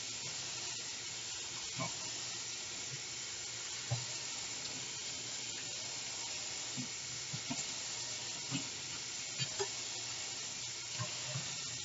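Tap water running steadily into a sink, with a few small knocks scattered through it.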